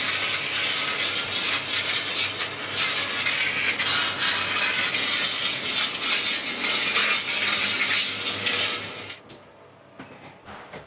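A dense, continuous rattling noise made of many small clicks over a hiss, cutting off abruptly about nine seconds in, followed by a couple of faint clicks.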